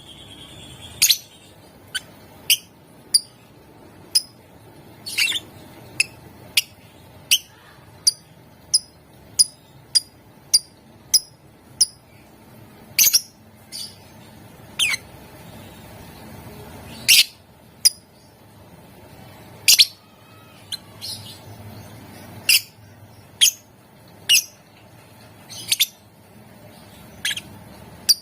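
Lovebird giving short, sharp, high-pitched chirps one at a time, roughly one or two a second at uneven spacing, some much louder than others.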